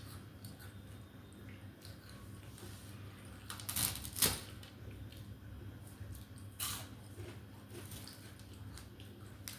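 Quiet eating noises over a low steady hum, with three brief sharp crackles or smacks: two close together about four seconds in, and one near seven seconds.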